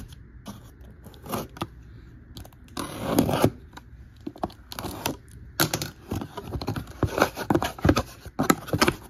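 Box cutter slicing the packing tape along a cardboard shipping carton, then the carton's flaps being pulled open: irregular scraping and tearing of tape and cardboard with short crackles and clicks, busier in the second half.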